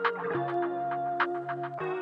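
Background music: sustained synthesizer chords with short plucked or struck notes over them, the chord changing about a third of a second in and again near the end.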